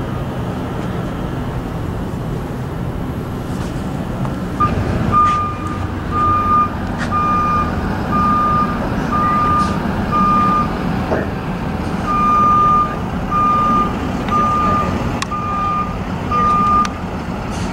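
A truck's reversing alarm beeping about once a second, most likely on one of the box ambulances at the helicopter pad. It starts about five seconds in and breaks off briefly partway through before resuming. A steady low rumble runs underneath.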